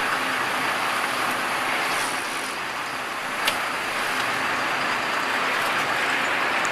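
Steady running noise of a fishing boat under way: engine drone mixed with wind and rushing water. One sharp click about three and a half seconds in.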